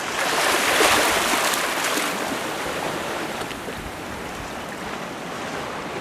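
Ocean wave surging and washing over the rocks: a rush of water that swells in about half a second in, peaks around a second, then slowly drains away into a steady wash.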